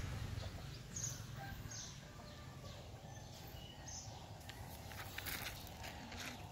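Quiet rural yard ambience with birds chirping faintly a few times over a low background rumble.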